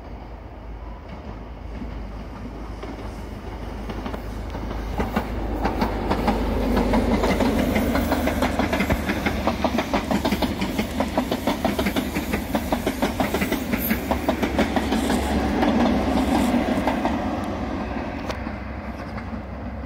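Network Rail's 'Flying Banana' measurement train, a Class 43 diesel power car at each end with Mark 3 coaches between, approaching and passing at speed. The sound builds for about five seconds, then the wheels click rapidly and steadily over the rail joints for about twelve seconds, and it fades near the end as the rear power car goes by.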